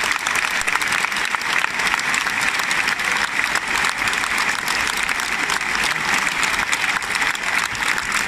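Large bullring crowd applauding, a dense, steady clapping that holds at an even level throughout.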